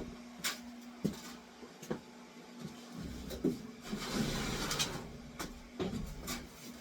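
Scattered light clicks and knocks of hand work on sheet-metal furnace parts, about eight or nine spread out, over a faint steady hum.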